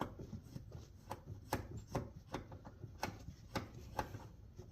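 Ratcheting wrench clicking in short, regular strokes, about two a second, as it backs a seat-bracket nut off its stud. The nut is turning freely on clean threads.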